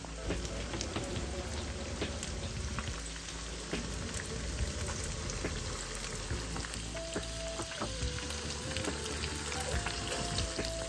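Scored rainbow snapper and spinner dumplings frying in hot oil in a pan: a steady sizzle with frequent crackles and pops.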